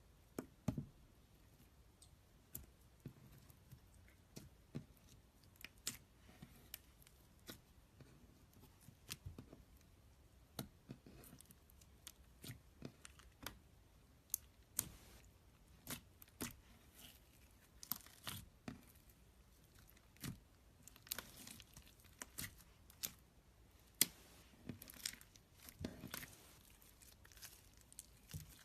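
Slime being squeezed and stretched by hand, giving faint, irregular sticky pops and crackles, a few a second, with louder snaps and denser clusters in the second half.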